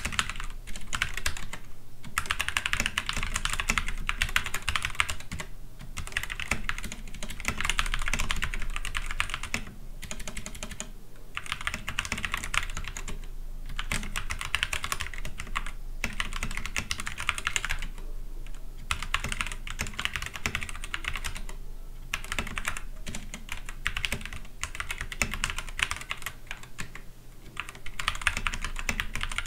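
Typing on an Akko 3084 mechanical keyboard: rapid key clicks in runs of a second or two, broken by short pauses.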